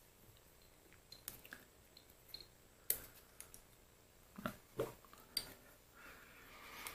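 Faint, scattered clicks and light metallic taps as small steel parts and a screw of a mini lathe's apron are handled and fitted, ending in a short scraping sound.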